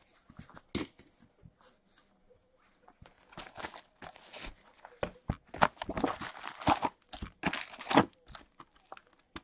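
Plastic shrink wrap on a hockey card box being slit with a box cutter, then torn off and crumpled in the hands: a few sharp clicks at first, then a long stretch of crinkling and crackling, loudest near the end.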